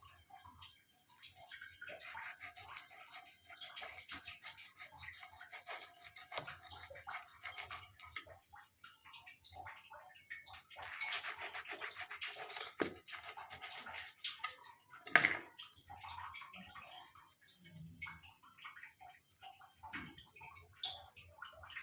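Hand food-preparation noises: irregular rubbing and scraping with scattered light clicks, and one sharper knock about fifteen seconds in.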